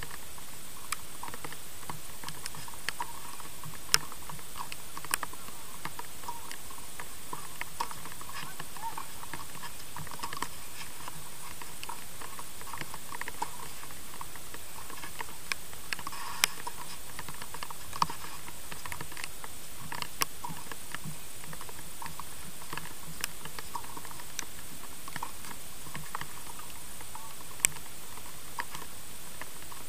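Sharp knocks of tennis balls struck by a Wilson Federer racket strung at 40 kg and bouncing on a clay court, coming at irregular intervals a few seconds apart over a steady hiss.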